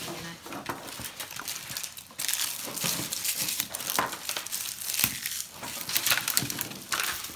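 Plastic toy wrappers being crumpled and squeezed by hand: an irregular crinkling and crackling that gets louder and busier about two seconds in.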